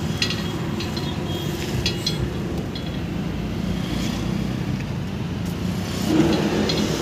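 Steady rumble of road traffic, with a few light clicks in the first two seconds.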